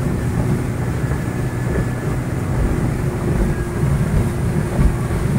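A motorboat's engine running steadily under way: a continuous low rumble.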